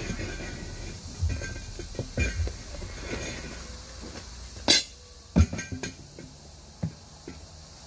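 Steel tire irons knocking and clinking against a 19.5-inch steel truck wheel and each other while a tire bead is pried by hand. A handful of sharp metal clanks come a little past the middle, with a few lighter knocks after.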